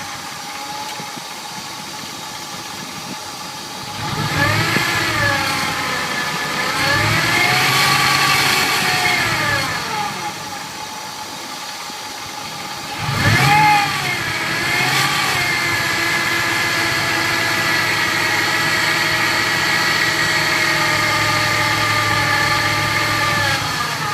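2000 Ford F-150's 5.4-litre V8 running with a whine that rises and falls in pitch with engine speed. It is revved about four seconds in, drops back, blips again near the middle, then holds a steady speed. The whine is the unexplained noise the owner is asking about.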